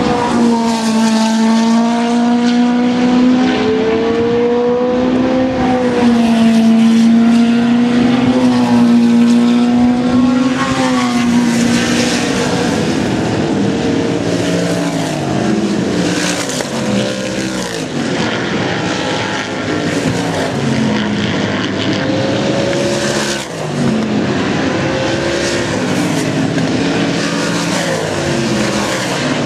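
Several oval-track race car engines running at speed in practice. One engine holds a fairly steady pitch for the first dozen seconds, then several engines overlap with pitches rising and falling as cars pass.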